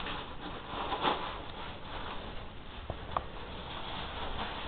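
Soft scuffling and rustling from a Siamese cat getting at bread, with a swell about a second in and two light knocks a little after halfway.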